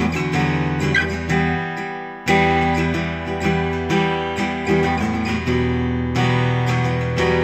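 Taylor Academy 12e acoustic guitar played through a Line 6 Helix, strumming chords. About two seconds in, a chord rings out and fades before a sharp new strum.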